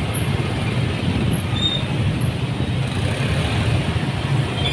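Dense motorbike and car traffic in a jam: a steady low rumble of engines.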